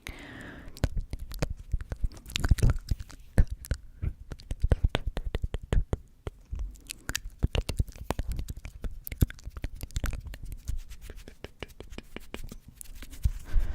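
Close-miked ASMR trigger sounds: a rapid, irregular run of sharp clicks and crackles with no whispering.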